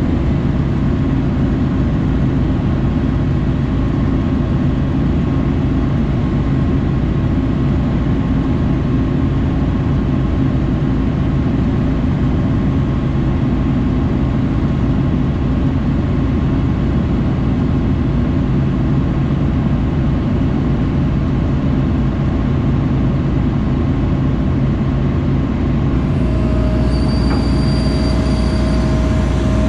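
Tracked excavator's diesel engine running steadily close by, a deep even hum. Near the end a steady higher whine joins in.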